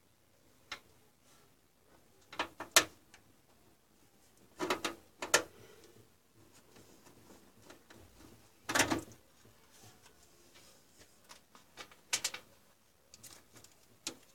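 Irregular clicks and knocks of hands and a yellow-handled tool working around the motherboard and cables inside an open desktop PC case, with a slightly longer, louder knock about two-thirds of the way through.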